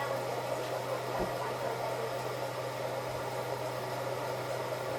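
Hoover H-Wash 500 washing machine running, a steady low hum under an even hiss.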